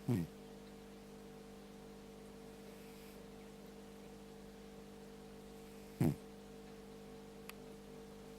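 Sleeping cat snoring: two short snores about six seconds apart, each dropping in pitch, over a steady electrical hum.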